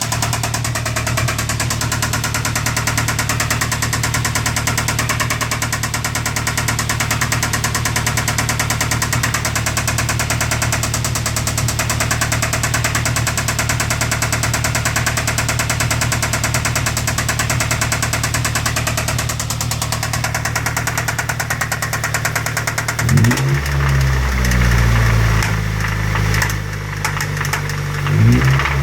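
2007 Ford Focus 2.0-litre four-cylinder engine idling with a steady rhythmic knock from a worn connecting-rod bearing (rod knock). About 23 s in and again near the end it is revved briefly, the pitch rising and falling.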